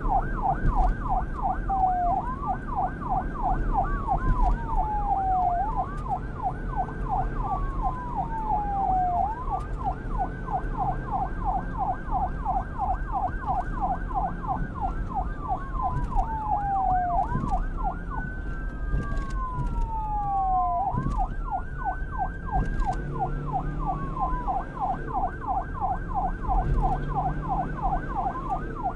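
Police car electronic siren on a rapid yelp, rising and falling several times a second, with slower wail sweeps rising and falling over it, above a steady low rumble.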